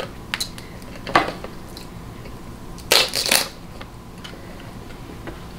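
King crab leg shell being cracked and broken apart: a sharp crack about a second in, then a louder cluster of two or three cracks around three seconds in.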